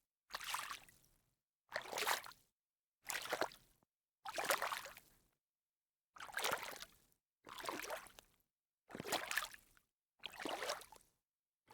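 Sneaker footsteps splashing in shallow water: eight separate steps, each a short splash that fades over about a second, spaced a little over a second apart, with a slightly longer pause about halfway.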